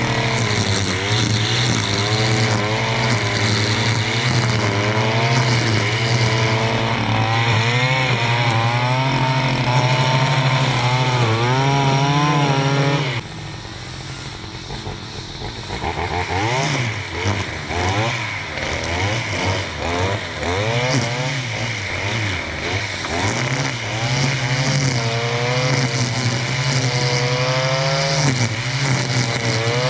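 Stihl FS 461 C-EM two-stroke brushcutter running at full throttle, its engine pitch wavering up and down. About 13 seconds in the throttle is suddenly let off and the engine drops to a lower, quieter speed. It then revs up and down in short bursts and is back at full throttle near the end.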